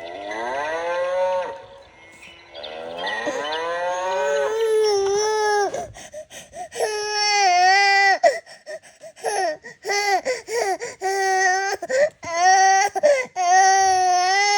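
A sound book's recorded cow moo, sliding down in pitch, then an 8-month-old baby breaking into loud crying: long wails on a steady pitch, broken by short catches of breath.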